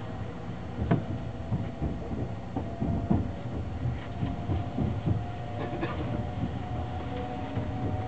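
Sunrise Seto/Izumo sleeper train, a 285-series electric train, pulling out: a steady low rumble with irregular clunks and knocks of the wheels running over rail joints and points.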